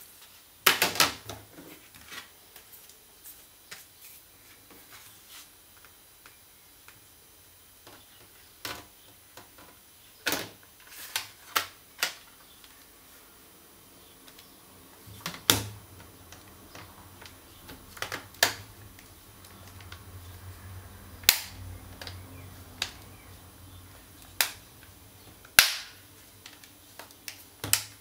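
White plastic back cover of a Samsung Galaxy Tab 3 10.1 being pressed onto the tablet: sharp plastic snaps as its clips click into place one at a time, irregularly, with a quick cluster about a second in and single snaps every few seconds after.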